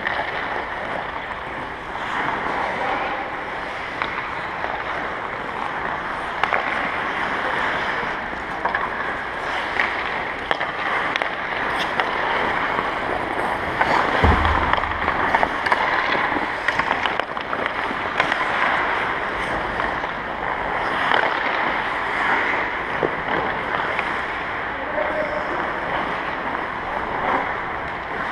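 Ice hockey practice on the rink: skates scraping and carving the ice in a steady hiss, with scattered clicks of sticks and pucks and a dull thump about halfway through.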